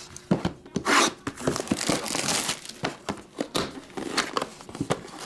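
Plastic shrink wrap crinkling and tearing as it is stripped off a trading-card hobby box, mixed with sharp taps and knocks of the boxes being handled.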